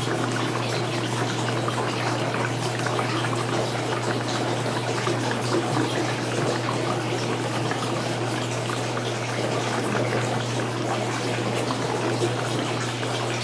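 Water and air running steadily through an aquaponics grow bed's loop-siphon drain into a clear braided hose. The siphon is drawing air but not breaking, because the pump's flow keeps refilling the bed. A steady low hum runs underneath.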